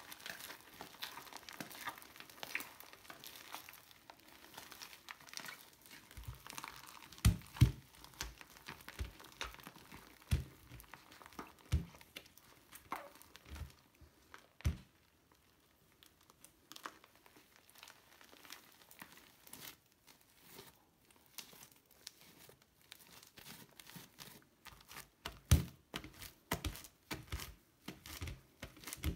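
Fluffy slime being kneaded, stretched and torn apart by hand in a bowl: a continuous sticky crackling and tearing, with a handful of louder, deeper pops scattered through it.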